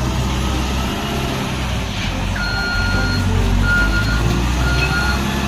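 Truck engine running with a low steady rumble while a reversing alarm starts beeping about two and a half seconds in, roughly one beep a second.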